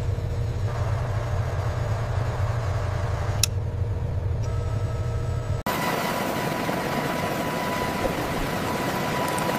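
A deep, steady engine-like rumble cuts off suddenly about five and a half seconds in. Then a helicopter runs on the ground: dense rotor and engine noise with a steady high turbine whine.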